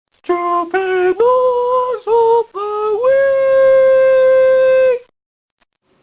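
A single voice singing a short unaccompanied tune of six notes, the last one held for about two seconds before it stops abruptly.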